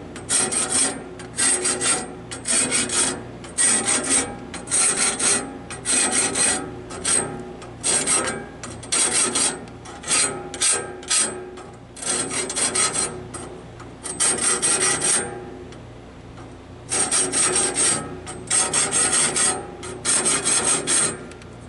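Hand file being stroked across the teeth of a sawmill band blade to sharpen them: rasping strokes about three every two seconds, with a short break a little past the middle.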